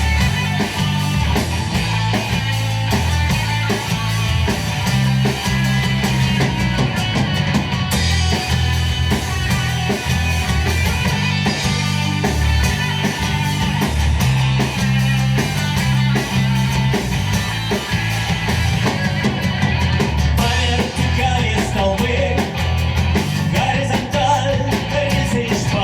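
Rock band playing live: guitars, bass and drum kit.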